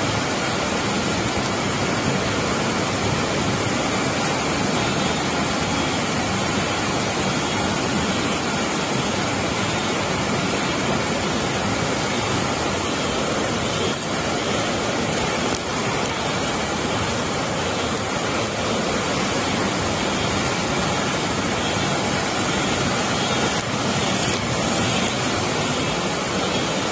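Floodwater rushing down a street as a fast torrent: a loud, steady wash of water noise that holds without a break.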